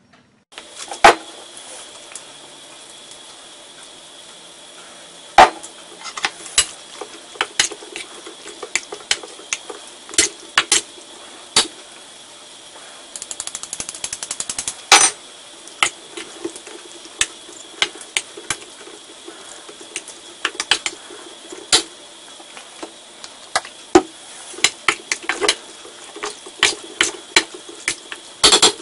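Metal spoons clinking, tapping and scraping against a stainless steel mixing bowl as cornstarch is spooned onto chicken pieces and mixed in. The clinks are sharp and irregular, a few of them loud, over a steady background hum.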